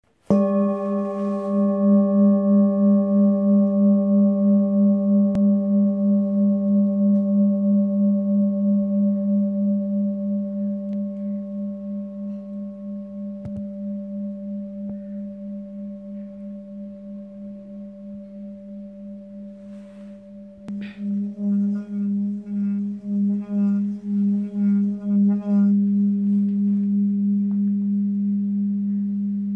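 Thado Batik singing bowl tuned to G3, struck once and left to ring with a slow wavering beat as its tone fades over some twenty seconds. About two-thirds through it is struck again and then rubbed around the rim with the mallet, so the tone swells back up with a pulsing shimmer in its upper notes.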